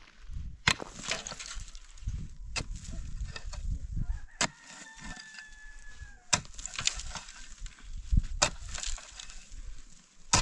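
Pickaxe striking dry, stony ground about every two seconds, each blow followed by a short rattle of loosened soil and pebbles.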